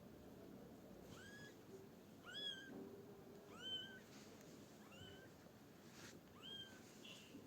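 A cat meowing: five short, high-pitched meows, each rising and then holding briefly, about one to one and a half seconds apart, heard faintly.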